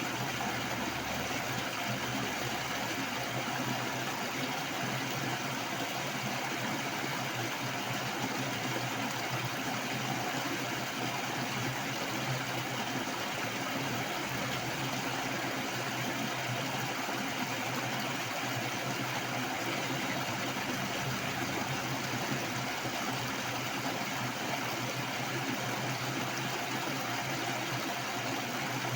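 Heavy rushing water, a steady, even roar of fast flow with no breaks.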